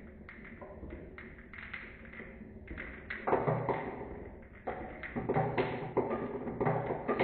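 Marbles rolling and clattering down a marble run: a continuous stream of quick taps and knocks, growing louder and busier about three seconds in.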